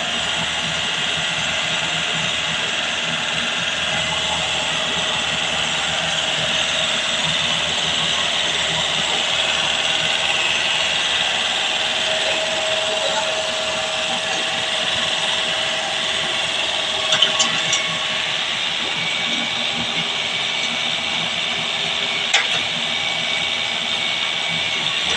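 Heavy-equipment diesel engine running steadily, with a constant high hiss over it and a few short sharp clanks in the second half.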